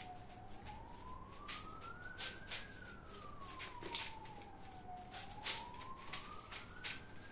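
A siren wailing slowly, its single tone rising and falling about every five seconds, with scattered short clicks and taps underneath.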